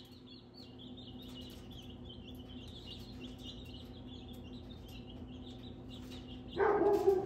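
A group of young chicks peeping continuously in a brooder, with a steady low hum underneath. Near the end, a brief, much louder, lower-pitched sound lasting about half a second cuts in over them.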